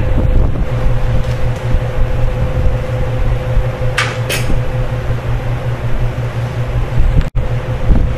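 Steady low rumble with a faint hum, like a shop fan running, and two light metal clinks of hand tools about four seconds in as a wrench is picked up for the clutch pressure-plate bolts.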